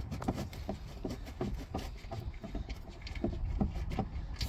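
Light, irregular clicks and ticks as fingers spin out the CVT drain plug on a 2015 Honda CR-V, just before the transmission fluid starts to drain, over a low steady rumble.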